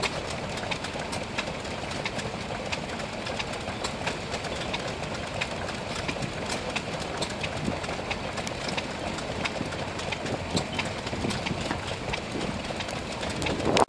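Vintage stationary engine running steadily, with a regular sharp tick about one and a half times a second.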